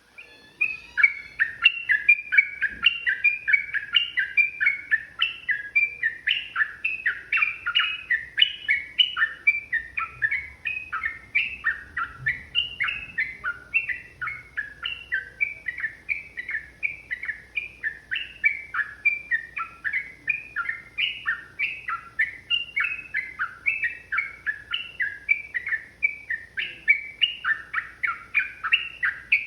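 Yellow-vented bulbul singing a long, rapid, unbroken run of bubbly chattering notes, several notes a second.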